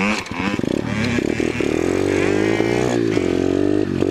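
Small dirt bike engine pulling away from low revs: separate putting pulses for the first half second or so, then a steady engine note that rises a little as it gets under way.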